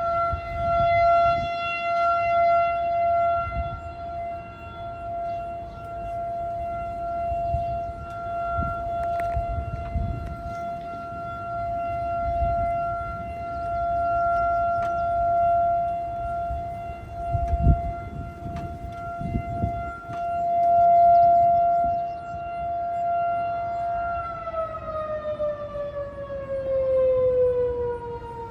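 Outdoor tornado warning siren sounding a steady tone for its monthly test, swelling and fading in loudness. About 24 seconds in, its pitch starts to fall.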